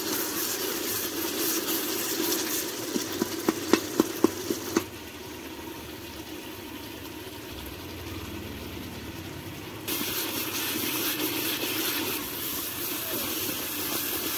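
Tomatoes frying in hot oil in a metal pot, a steady sizzle, with a quick run of sharp knocks as the spatula strikes the pot about three to five seconds in. The sizzle turns quieter and duller for about five seconds, then comes back louder.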